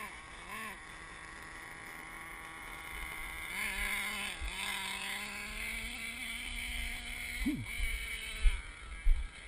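Radio-controlled monster truck's small engine running and revving. It holds a buzzing note for a few seconds, then drops quickly in pitch. Two loud knocks come near the end.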